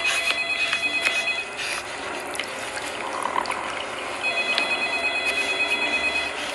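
Horror film soundtrack: a steady hiss with shrill, high electronic tones at several pitches that pulse in quick repeated beats. The tones sound near the start and again from about four seconds in.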